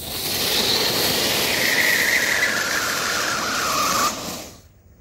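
Damo Fireworks 'Angry Birds' sound cracker, a ground fountain, spraying sparks with a loud hiss and a siren-like whistle that slides down in pitch. It cuts off about four and a half seconds in.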